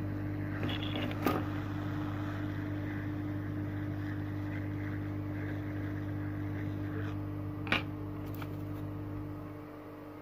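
Hot air rework station's blower running with a steady hum as it heats the phone's CPU chip for reflow. Two sharp clicks come about a second in and near eight seconds, and the hum drops away near the end.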